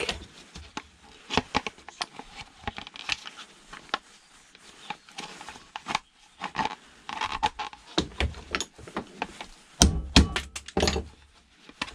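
Electric fan's motor and white plastic housing being handled and worked apart by gloved hands: a run of small clicks, knocks and scrapes of plastic and metal, with a louder cluster of knocks about ten seconds in.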